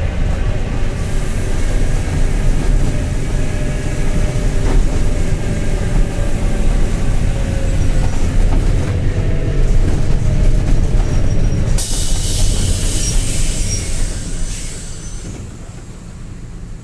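Mercedes-Benz OF-1721 city bus's four-cylinder diesel running under way, with a droning hum from a worn bearing over the engine rumble. About twelve seconds in, a loud burst of compressed-air hiss lasts a couple of seconds, and the running sound then falls away as the bus eases off.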